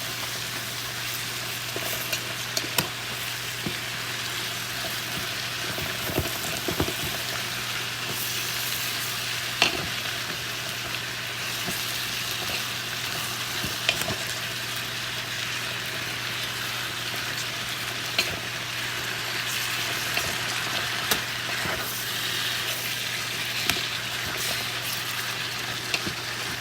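Cabbage sautéing in butter in a pan, a steady frying sizzle, with occasional short clinks and scrapes of a utensil stirring it.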